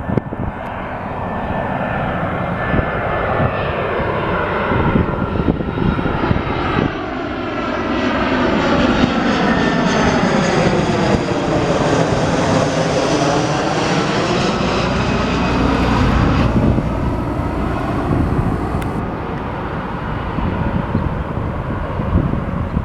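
Jet engines of an easyJet Airbus A320-family airliner on final approach, passing low overhead: a steady roar that swells to its loudest in the middle, with a whooshing sheen that dips in pitch and rises again as the aircraft goes by, then fades.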